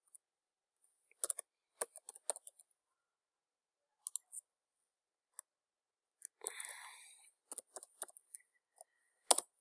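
Computer keyboard keystrokes: scattered short clicks in small clusters. A brief rustling noise comes a little past the middle.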